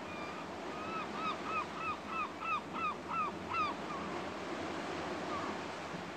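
An animal calling: a run of about nine short calls, each rising then falling in pitch, about three a second for some three seconds, over a steady rushing background.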